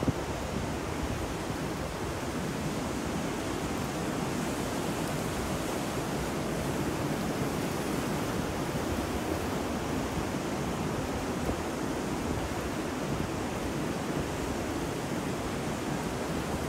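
Ocean surf mixed with rain and wind, a steady, even hiss with no single wave standing out.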